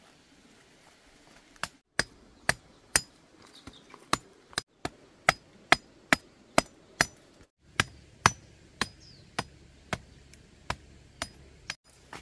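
Steady hammering with a hand tool: about twenty sharp blows at roughly two a second, starting about a second and a half in, with a few short breaks.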